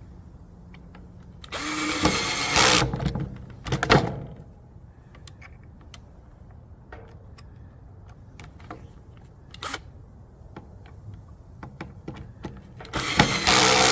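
Cordless drill driving screws into plywood to fix metal ring hangers. It runs in a burst about two seconds in, again briefly around four seconds, and once more near the end, with faint clicks of handling in between.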